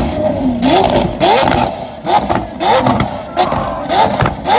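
Lamborghini Aventador SV's V12 being blipped over and over, a quick rev about twice a second, with its exhaust popping and crackling after each blip as it spits flame.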